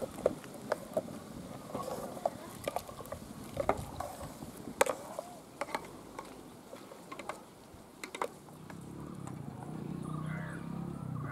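A wooden ladle stirring in an aluminium pot, knocking against its sides in sharp, irregular clacks that stop after about eight seconds.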